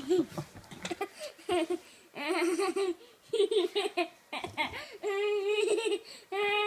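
Young child laughing and giggling in short bursts, breaking into two longer, wavering squeals of laughter near the end.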